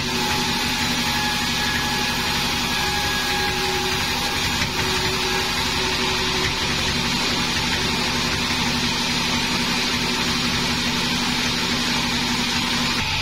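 Large sawmill bandsaw running steadily while a plank is pushed through the blade: an even machine noise with a few faint held tones that come and go, and no pauses.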